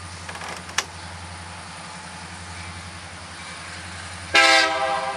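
A steady low engine drone, then near the end a diesel locomotive's air horn sounds a sudden loud blast, a multi-note chord lasting about a second.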